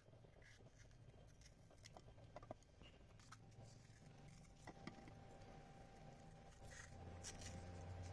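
Faint, crisp snicks of a kitchen knife slicing through raw green bell pepper held in the hand, scattered irregularly, with a low hum swelling near the end.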